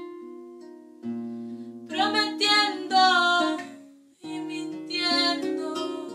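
Nylon-string acoustic guitar with a capo: a few picked notes ring out, then louder strummed chords come about two seconds in and again about five seconds in, each left to ring and fade.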